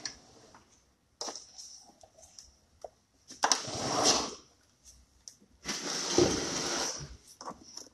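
Off-camera handling noises in a room: scattered clicks and knocks, and two rustling bursts of about a second each, one near the middle and one later.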